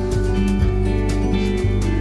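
Background music: an acoustic guitar song playing in a gap between sung lines.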